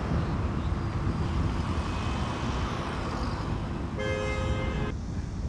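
Road traffic rumbling steadily, with a car horn sounding once for about a second near the end.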